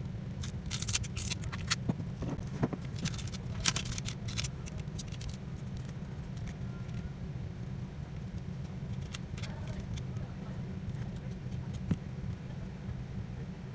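Small clicks, taps and scrapes of a smartphone's parts being handled and pried apart, as the battery is levered out with a thin tool, over a steady low hum.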